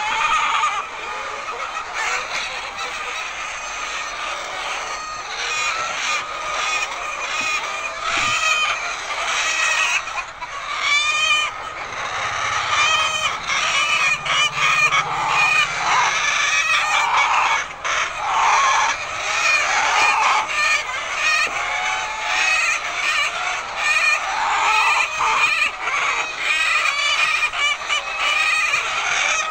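A large flock of hens clucking and squawking together without pause, many overlapping calls at once, growing busier about halfway through.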